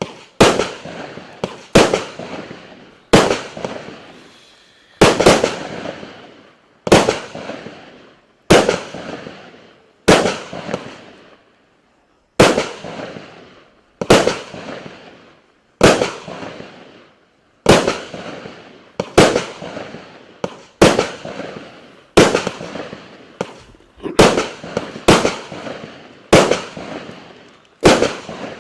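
A 36-shot, 0.8-inch-calibre fireworks cake ("Bubentsy") firing its shots one after another, about one every one to two seconds. Each shot is a sharp bang followed by a tail that dies away.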